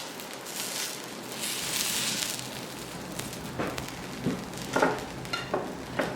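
Dosa sizzling on a hot griddle, with a metal spatula scraping and knocking against the pan several times in the second half as the crisped strips are worked and rolled.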